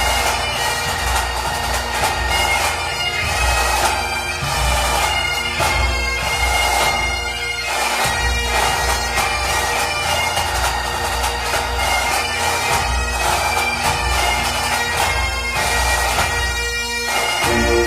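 Bagpipe music: steady drones under a chanter melody, with a low pulsing beat underneath.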